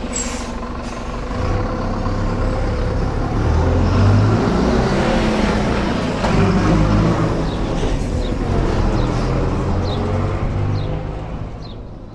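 Mercedes-Benz OF-1722M bus engine running under way, with the driveshaft rumbling. The sound swells a little over a second in, shifts in pitch with engine speed, and dies away near the end.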